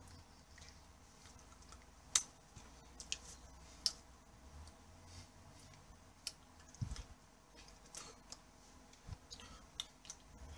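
Faint, irregular clicks and a few soft thumps from hand and body movement close to the microphone while a person signs, over low room hum.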